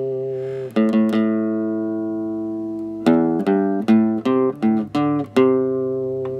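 Instrumental background music of plucked notes that ring and fade: a long held note, then a quick run of short notes about three seconds in, then another long held note.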